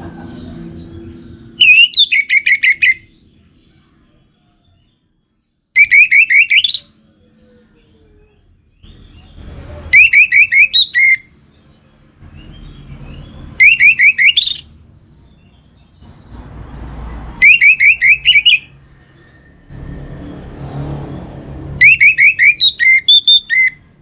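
Orange-headed thrush (anis merah) singing: six short phrases of rapid, loud whistled notes, each about a second long, coming every four seconds or so.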